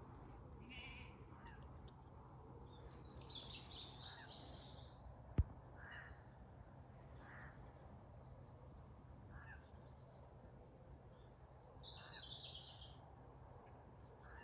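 Faint wild birds calling: scattered short chirps about every second or two and two brief twittering phrases, one near the start and one near the end. A single sharp click about five seconds in.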